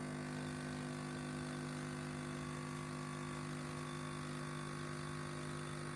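Tassimo T40 coffee machine running its pump to dispense hot water, a steady unchanging hum.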